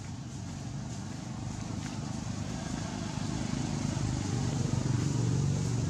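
A motor vehicle's engine running low and getting steadily louder, as it comes closer.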